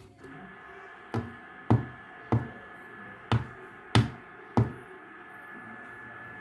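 Background music: a held high tone with sharp drum hits roughly every 0.6 seconds, starting about a second in.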